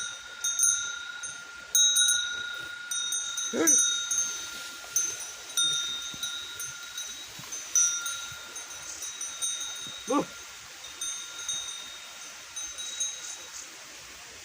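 Livestock bleating twice, short calls about three and a half seconds and ten seconds in, over steady metallic ringing that sounds like animal bells jingling.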